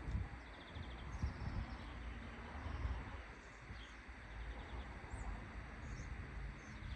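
Outdoor rural ambience: small birds chirping now and then, including a couple of quick trills, over a steady low rumble.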